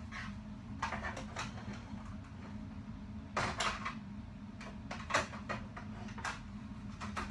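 Objects being handled close by: a series of short, irregular knocks and rustles, loudest about three and five seconds in, over a steady low hum.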